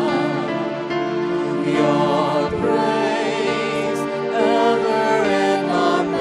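Christian worship song: sung vocals with vibrato over sustained musical accompaniment.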